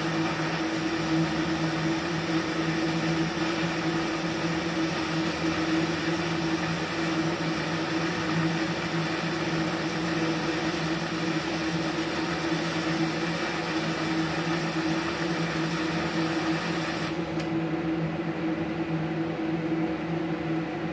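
Pulsed DC TIG welding arc from a MultiPro TIG315AD inverter welder, a steady hiss and buzz over the hum of the machine and its water cooler. The arc cuts off suddenly about 17 seconds in, leaving the lower hum.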